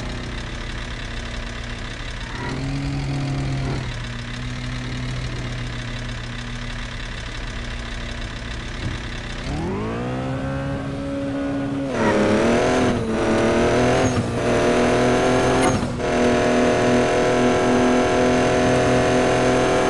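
A vehicle engine idling. About ten seconds in it revs up and accelerates hard, climbing in pitch with several sharp drops and rises, then holds a steady high rev.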